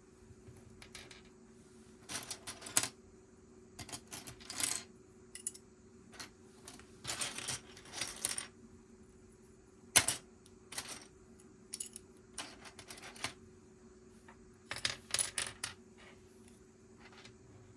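Plastic Lego pieces clicking and clattering in irregular bursts as they are handled and fitted together, with one sharp click about ten seconds in standing out as the loudest.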